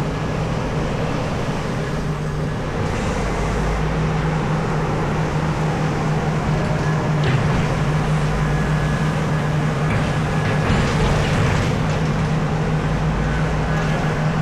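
A Komatsu PC4000 hydraulic mining excavator running steadily with a deep, constant drone. Brief harsher noises come about seven seconds in and again around ten to twelve seconds in.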